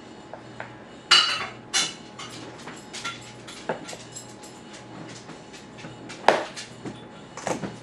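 A baby knocking a plastic cup against a plastic high chair tray: irregular knocks and clatters, the sharpest about a second in and just after six seconds.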